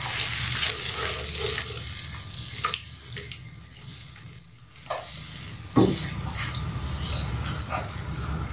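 Silicone spatula stirring a thin, hot sauce in a nonstick wok, with the sauce sizzling and a few short knocks of the spatula against the pan, the loudest about six seconds in.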